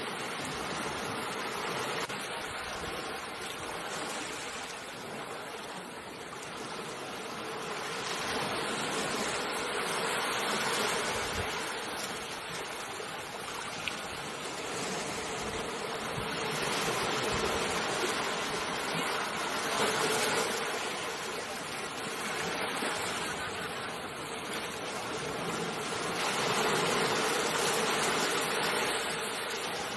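Ocean waves washing onto shore, a continuous rush of surf that swells and ebbs every several seconds.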